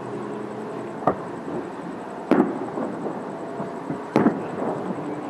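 Aerial fireworks shells bursting: three sharp booms, about a second in, a little past two seconds and a little past four seconds, the last two the loudest, each followed by a short rumbling tail.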